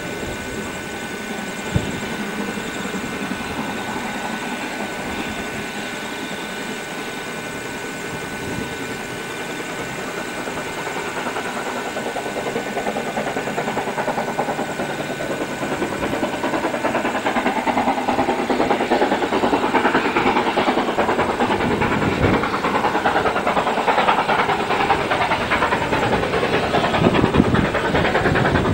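NZR KA-class 4-8-4 steam locomotive KA 945 working hard upgrade, its exhaust chuffing in a fast rhythm that grows steadily louder through the second half as it approaches.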